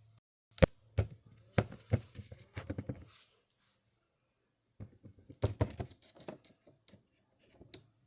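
Small plastic toys and toy props being handled and set down: a string of light clicks and taps in two busy runs, with a pause between them.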